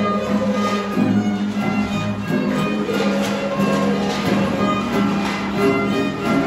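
Violin playing a folk melody with guitar accompaniment.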